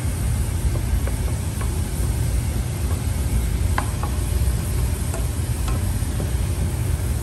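Wooden spoon stirring and scraping through a simmering stock sauce in a non-stick frying pan, with a few light ticks of the spoon against the pan, over a steady low rumble.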